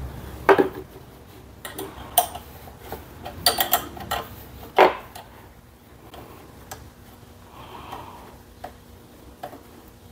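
Sharp metallic clicks and clinks as hands work loose the throttle cable at the metal throttle control bracket of a small engine. Several sharp clicks come in the first five seconds, then fainter ticks.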